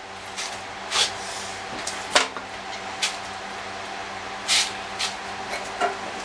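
Mallet knocking on diamond-plate sheet metal to bend it: a series of sharp, uneven strikes roughly once a second, the metal resisting the bend. A steady hum runs underneath.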